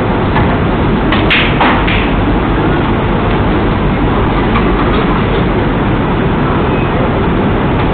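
Steady loud noise haze of the room and recorder, with a few sharp clicks a little over a second in: the snooker cue striking the cue ball and the balls knocking together.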